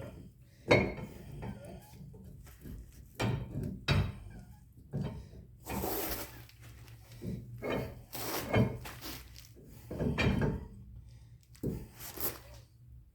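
Workshop handling sounds from parts and tools being moved: a sharp knock about a second in, then a string of separate clunks and scrapes.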